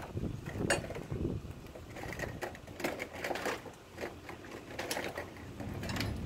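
Landscape weed-barrier fabric rustling and crinkling as it is handled and spread, with irregular clicks and scrapes.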